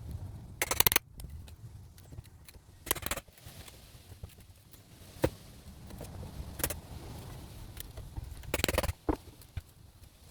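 Hand-tool work on old wooden deck railings: metallic clinks, knocks and rattling in about five short bursts a couple of seconds apart, with smaller clicks between.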